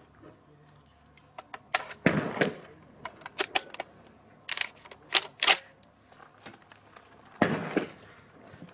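Clicks and clacks of a Balıklı Makarov S20 magazine-fed 20-gauge shotgun being handled and readied to fire, with a louder clack about two seconds in. Near the end comes a heavier knock as the gun is settled onto a shooting rest.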